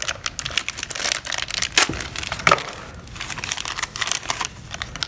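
Thin clear plastic bag crinkling as it is handled and opened, a continuous crackle with a few sharper, louder crackles about two seconds in.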